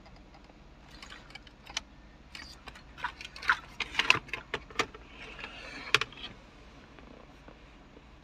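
Plastic wiring-harness plugs clicking and rattling as they are handled and pushed into the connectors behind the dash. An irregular run of sharp clicks, loudest about four and six seconds in.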